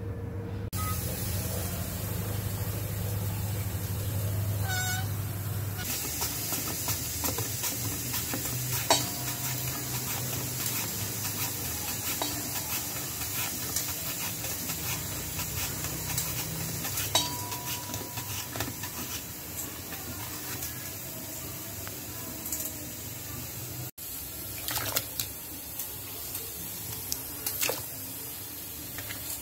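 Potatoes being sliced on the slicing blade of a steel box grater: irregular scraping strokes over a steady background hiss. There is a short high call about five seconds in.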